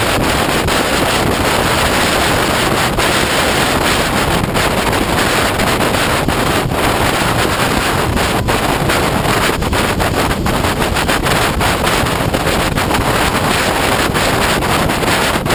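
Wind rushing over the microphone of a camera mounted on a moving motorcycle: a steady, loud noise that covers any engine sound.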